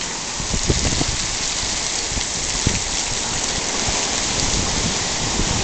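Heavy rain pouring down and drumming on surfaces, a steady dense hiss with low gusty rumbles of wind on the microphone.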